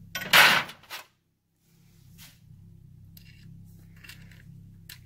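Hands working the alternator wires through a small fitting in the primary case: a loud, brief rustling burst just after the start, then faint scraping and clicking as the wires are pushed into the fitting.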